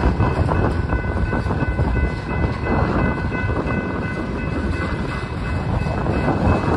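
Freight cars of a passing train rolling through a grade crossing: a steady rumble and rattle of wheels on rail, with faint steady high tones above it.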